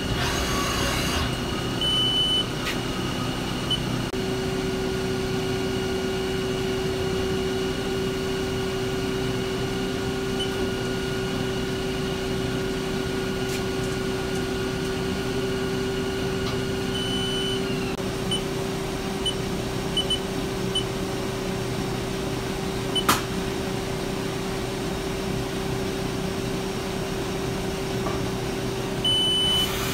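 Haas ST-20 CNC lathe powered up, its motors and pumps giving a steady hum with a held tone that comes in about four seconds in. Short electronic beeps sound near the start, in a run a little past the middle, and near the end, with one sharp click about two-thirds through.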